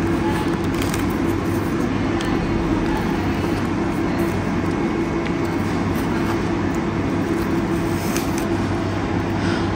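Steady restaurant background noise: a constant low hum with faint scattered clicks and clatter.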